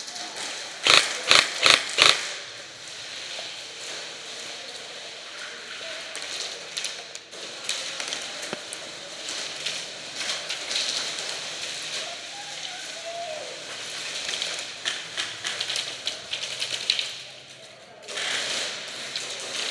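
Airsoft guns firing: four sharp shots in quick succession about a second in, then scattered lighter pops and clicks.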